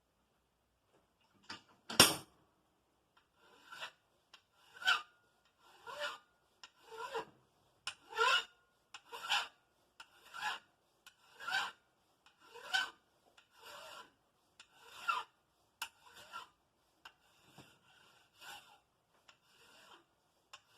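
Hand file strokes on metal, about one stroke a second in an even rhythm, after a single sharp knock about two seconds in.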